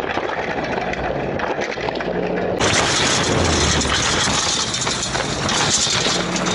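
Waterless race boat rolling over and being dragged across a dirt track, with a continuous scraping, rushing roar of hull and dirt and a low engine hum underneath. The noise turns harsher about two and a half seconds in.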